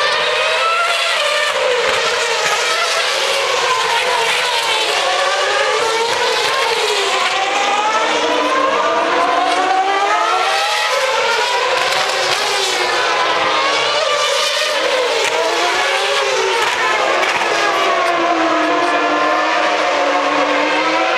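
Formula One cars' 2.4-litre V8 engines at high revs going round the circuit, several heard at once, their pitch climbing and dropping again and again through gear changes and braking.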